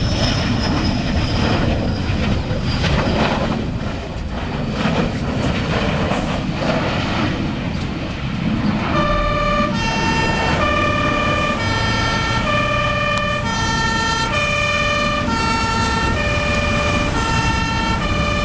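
Loud rumbling noise with a faint falling whine. About halfway through, a two-tone emergency-vehicle siren starts, alternating high and low about every 0.7 seconds.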